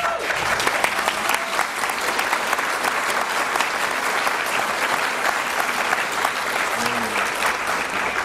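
Audience applauding, a dense steady clatter of many hands clapping that begins to fade near the end.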